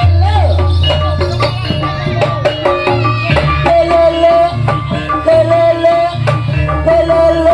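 Javanese ebeg (kuda lumping) accompaniment music: steady drum and percussion strikes under a strong bass and a held, wavering melody line.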